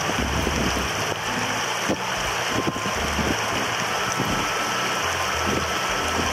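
Mountain river water rushing over rocks: a steady, dense hiss with no breaks.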